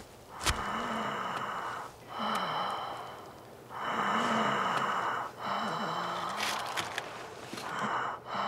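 A person's laboured, wheezing breathing: several long, noisy breaths, each with a thin whistle in it and a low groan underneath.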